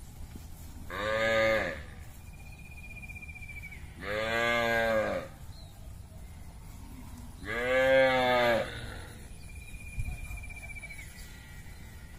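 Cattle mooing: three short moos, each about a second long, roughly three seconds apart.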